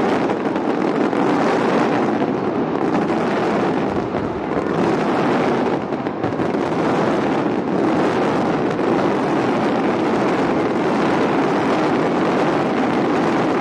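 Fireworks going off in a dense, continuous barrage, a steady mass of crackles and bangs with no pause.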